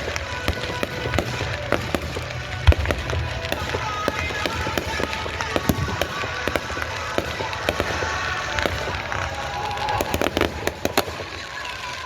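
Fireworks going off: a rapid, irregular run of sharp bangs and crackles, one much louder bang about two and a half seconds in, over a steady low rumble.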